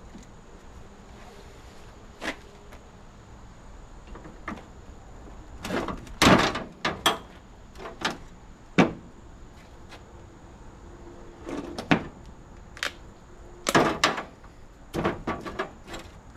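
Irregular sharp metal snaps and clanks, about a dozen, bunched around the middle and near the end: brass and copper fittings being cut off an air conditioner with long-handled bolt cutters and knocked about on a sheet-metal panel.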